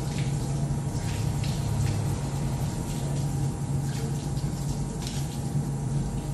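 Water running from a wall tap at a mosque ablution station and splashing onto a stainless-steel drain grating as someone washes for prayer (wudu), with irregular splashes over a steady low hum.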